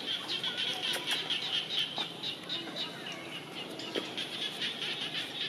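Birds chirping over a steady outdoor background, with short high chirps repeating several times a second.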